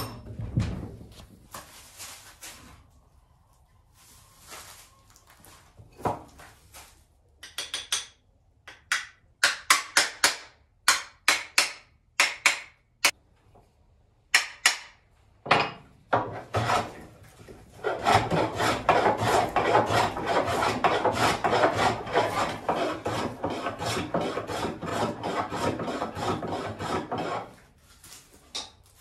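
Wood being shaped by hand with a rasping tool: a run of separate strokes about two a second, then about ten seconds of fast, continuous rubbing that stops near the end. A knock right at the start.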